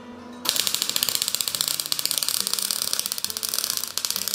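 MIG welder arc crackling and sputtering in a rapid, harsh stream on a steel antler, starting abruptly about half a second in. The voltage is turned down and the wire speed is at full, so the wire spatters and bounces off instead of running a smooth bead: a deliberately cold, stubbing weld used to raise knobby dots.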